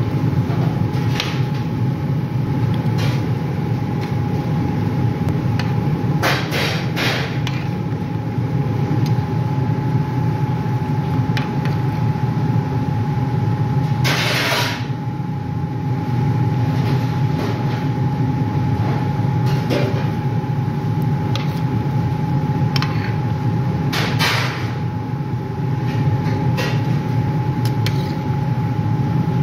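A steady low machine hum with a thin steady tone above it, broken now and then by short clicks and knocks and a few brief noisy scrapes.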